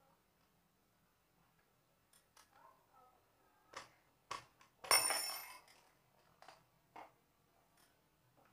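A spanner and metal engine parts clinking irregularly as the cylinder head of a Yamaha Mio Soul scooter engine is unbolted, with one louder metallic clank about five seconds in that rings briefly.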